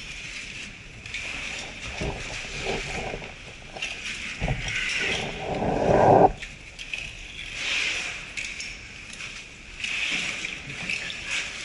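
Rustling, scraping and knocking of a caver's oversuit and climbing gear on a rope as he climbs up a rock shaft, in uneven swells; the loudest scrape builds about four and a half seconds in and cuts off suddenly just after six seconds.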